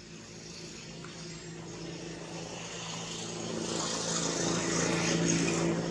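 A passing motor vehicle's engine hum with road or air noise, growing steadily louder and loudest near the end.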